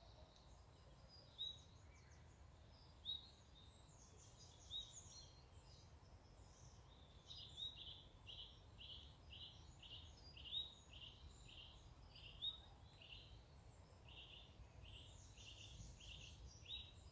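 Faint woodland birdsong: a few scattered high chirps, then from about halfway one bird repeating a short high note roughly twice a second, over a faint low rumble.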